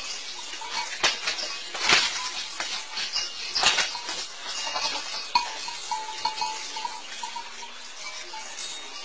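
A rooster and a goat scuffling: a run of sharp knocks and clattering, with a few short animal calls about six seconds in.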